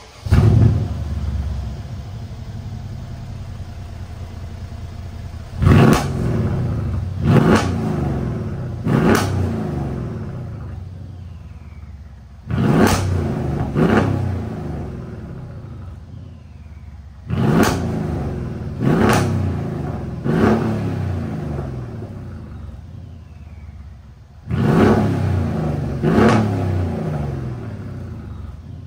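Renntech-tuned twin-turbo V8 of a Mercedes-Benz E550, exhaust resonators deleted, starting with a flare and settling to idle. It is then revved in short blips, about ten in all in groups of two or three, each falling back to idle.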